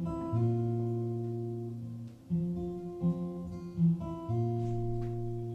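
Live acoustic guitar intro: chords strummed and let ring, a few new chords struck in turn.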